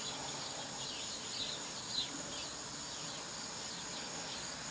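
Quiet background ambience: a faint steady hiss with a thin high steady tone, and a few faint short chirps between about one and two and a half seconds in.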